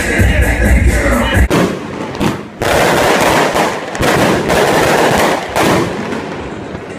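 Loud party music with a heavy beat, cut off about a second and a half in by New Year's fireworks: a dense, rapid crackle of bangs that thins out near the end.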